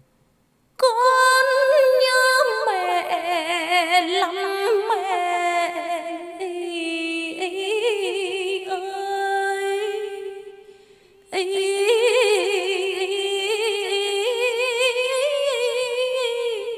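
A woman singing in the Vietnamese chèo folk style, with long held notes and a strong, fast vibrato. She sings in two long phrases, starting about a second in and pausing briefly about ten and a half seconds in.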